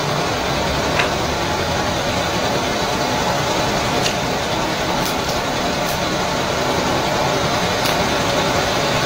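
Steady background hiss and rumble, with a few faint clicks of small carburetor parts being handled.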